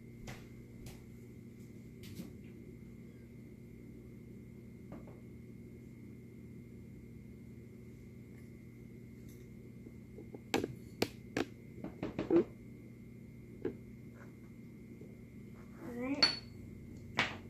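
A utensil clinks and taps against a mixing bowl several times in quick succession partway through, over a steady background hum with a thin high whine.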